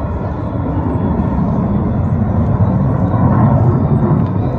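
Blue Angels F/A-18 Super Hornet jets flying low past, a steady jet roar that slowly builds, loudest a little past the middle.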